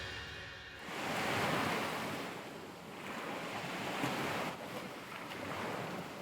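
Sea waves washing in, swelling and falling back about three times, as the tail of background music fades out in the first second.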